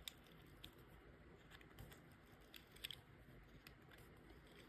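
Near silence with a few faint, scattered small clicks: a bit being fitted into a small multi-purpose repair tool.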